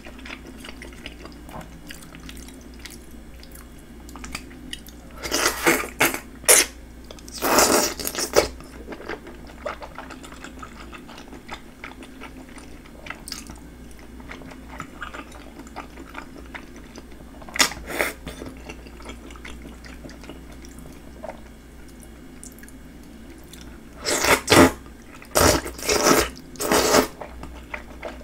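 Close-up eating sounds: thick Chinese glass noodles in spicy sauce slurped in several loud bursts, a pair about 5 to 8 seconds in, a short one around 18 seconds and a cluster near the end, with soft wet chewing between.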